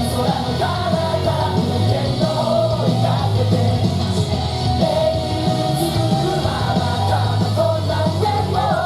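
Loud rock-style song with singing over a strong, steady bass.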